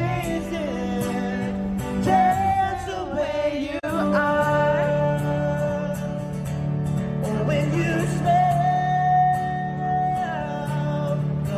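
A street busker singing through a microphone and playing an amplified acoustic guitar, with long held sung notes.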